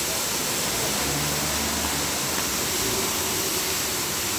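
Steady hissing noise of car-wash machinery and water spray, with a faint low hum for a second or so near the start.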